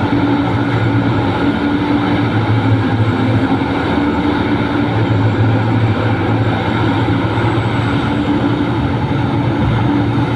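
Large hydraulic mining excavator's diesel engine running steadily, a continuous low hum over dense mechanical noise with no breaks.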